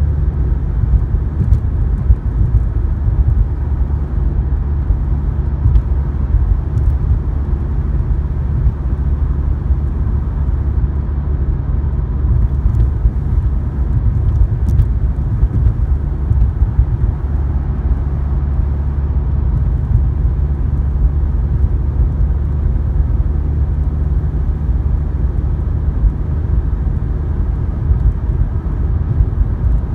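Steady low rumble of a car cruising at motorway speed, heard from inside the cabin: tyre, road and engine noise with no changes of pace.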